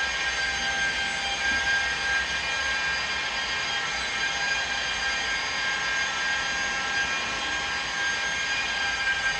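Electric rotary polisher buffing a scratch out of glass, its motor running at a steady high speed with a high-pitched whine.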